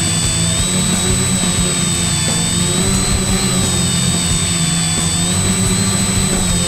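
Tricopter's three electric motors and propellers running steadily close to the onboard camera, with a high whine that rises and falls gently as the throttle shifts and a constant higher tone above it.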